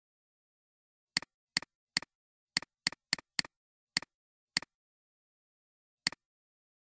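Computer mouse button clicks: about ten sharp clicks at uneven spacing, each with a quick second tick just after, and dead silence between them.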